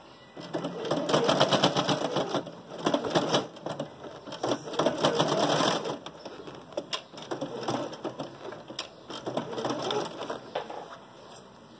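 Electric domestic sewing machine stitching a seam through cotton fabric, its needle going at a fast, even rate. One long run of stitching over the first half, then shorter starts and stops.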